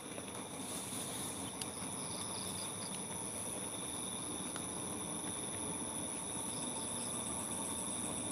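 Steady, high-pitched chirring of crickets and other night insects over an even low background hiss.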